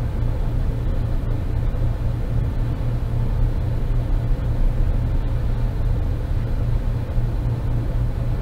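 Steady low rumble of running machinery, with a few faint light clicks of metal parts being handled.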